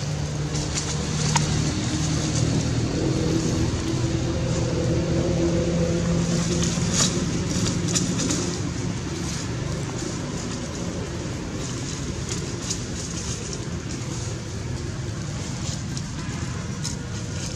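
Engine of a motor vehicle running nearby, loudest during the first half and then easing off, with scattered light clicks.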